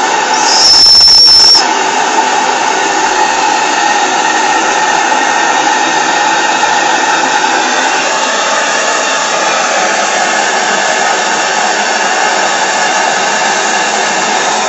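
Miniature steam plant running with a steady hiss, from the Saito boiler and the PMR oscillating V-twin steam engine at speed. About half a second in, a short shrill toot of the boiler's steam whistle sounds on one high note and lasts about a second.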